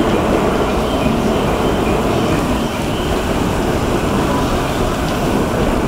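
Heavy rain falling on a station platform and track, with strong gusty wind rumbling across the microphone: a loud, steady noise.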